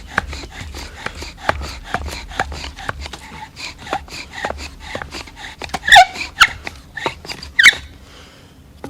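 Bow drill at work: the wooden spindle rasping and squeaking in the hearth board with each stroke of the bow, about three strokes a second, with a few louder squeaks near the end before the drilling stops. This is a friction-fire attempt that raises an ember which soon goes out.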